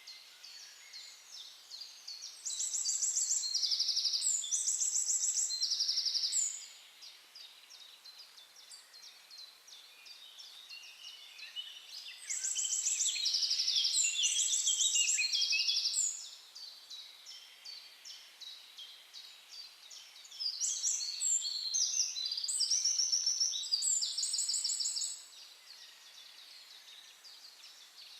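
A songbird singing loud, rapid high trills in three bouts of about four seconds each, spaced several seconds apart, over fainter steady chirping from other birds.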